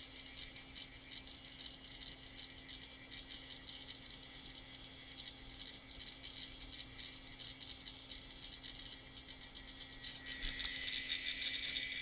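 Quantum ProDrive LPS 230 MB hard drive in a Macintosh IIvx clattering as its heads seek rapidly while the system loads at boot. A steady low hum runs underneath, and the clatter grows louder and denser about ten seconds in.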